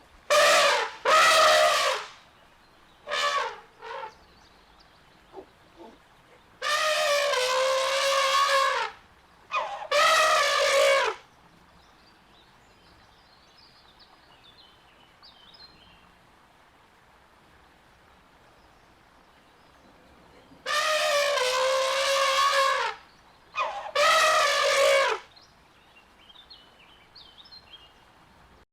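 Elephant trumpeting: a few short calls near the start, then two pairs of longer pitched trumpet calls, each lasting one to two seconds, with near-quiet gaps between the pairs.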